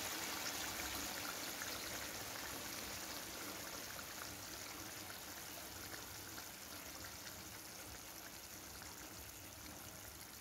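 Thick egg masala gravy simmering in a pan, bubbling and popping steadily, growing gradually quieter.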